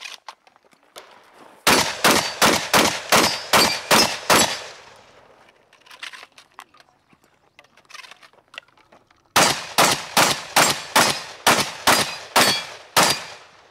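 Shotgun fired in two rapid strings, about three shots a second: about eight shots, a pause of some five seconds with a few faint knocks, then about nine more.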